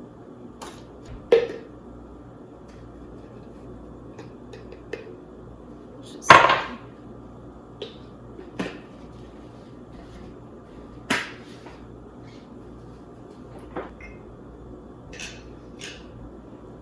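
Scattered clinks and knocks of a kitchen utensil against a measuring cup and dish while cooked sweet potato is scooped out. There are a handful of separate hits, the loudest about six seconds in, over a steady low hum.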